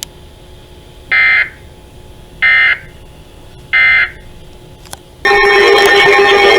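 Emergency Alert System end-of-message signal: three short, identical electronic data bursts about a second and a quarter apart. About five seconds in, a loud, steady EAS attention tone begins.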